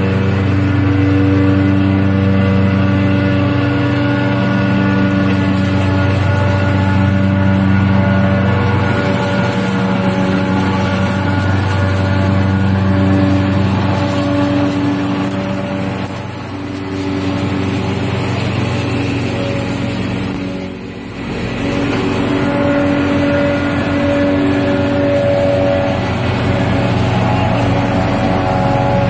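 Diesel tractor engines working hard under load while a PZ maize chopper runs, chopping forage maize and blowing it into a trailer, with a steady droning note. The sound dips briefly twice, and the engine note shifts near the end.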